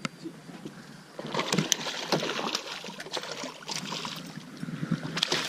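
Water splashing and sloshing as a small pike thrashes at the surface beside the boat, starting about a second in, with many short sharp splashes.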